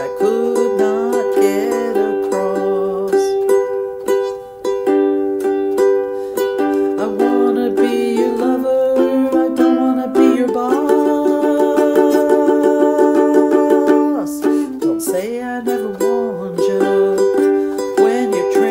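Ukulele playing an instrumental break in G: strummed chords with a picked melody line.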